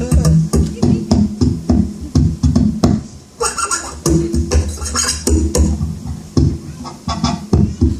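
Live acoustic guitar and bass playing an up-tempo, percussive groove, with sharp rhythmic strikes, several a second, over low bass notes.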